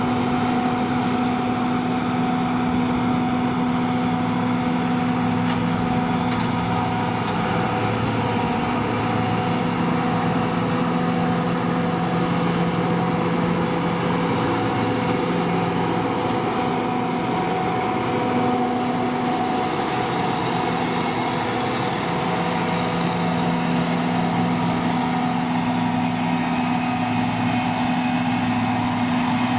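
John Deere 2258 combine harvester running steadily, its engine and threshing machinery working while cutting barley. The hum holds steady, with small shifts in its low pitch a few times.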